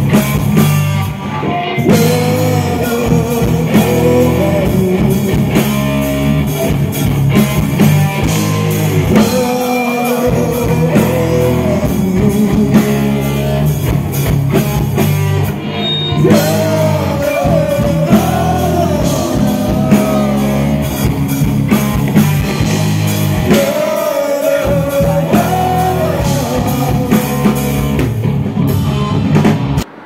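Rock band playing loudly: electric guitars and a drum kit with a singer's voice over them.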